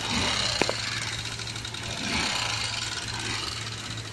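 Honda Unicorn 150's air-cooled single-cylinder engine running steadily with a lot of mechanical knocking noise from the cylinder head, which the mechanic traces to the rocker arms knocking because oil is not reaching the head, leaving the valve tips flattened.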